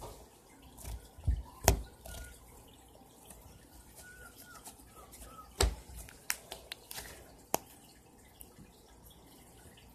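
Pink glitter slime being stretched and pinched by hand, giving scattered wet clicks and pops: two sharp ones about a second and a half in, then a quick run of them past the middle.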